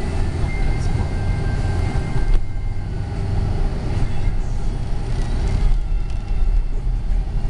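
Storm wind buffeting the camera microphone: a loud, steady low rumble.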